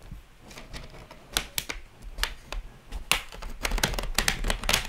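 Plastic clips of an Asus ROG G513Q laptop's bottom cover snapping loose as a card is slid around the edge to pry it open: scattered sharp clicks, coming thick and fast in the last two seconds.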